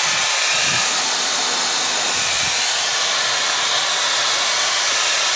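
Dyson Airwrap's motor and fan running with the pre-styling dryer attachment fitted, blowing a steady, even rush of air.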